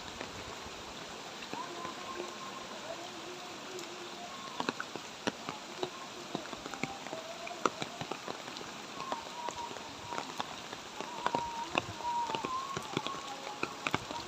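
Light rain falling steadily, with scattered sharp drops ticking close by. Faint wavering pitched sounds run underneath.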